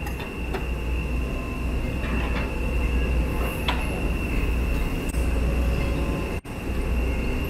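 Steady low rumble of running machinery with a constant high-pitched whine over it. The sound cuts out for an instant near the end.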